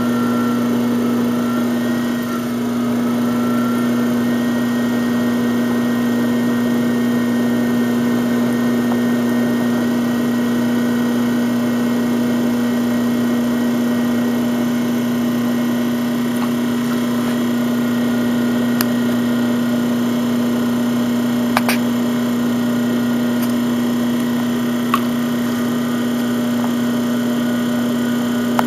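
Electric pottery wheel motor running at a steady speed, a constant hum, with a few sharp clicks in the second half.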